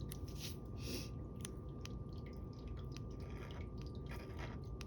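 Scratch-off lottery ticket being scratched in short, irregular strokes, with a few light clicks.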